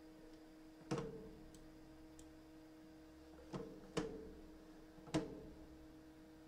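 Four sharp taps or knocks over a faint steady electrical hum. One comes about a second in, then three follow close together between about three and a half and five seconds in, each with a short ringing tail.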